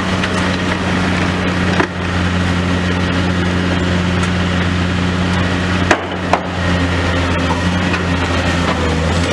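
Demolition excavator's diesel engine running steadily under load, with sharp cracks and knocks from breaking building material: one about two seconds in and two close together around six seconds in.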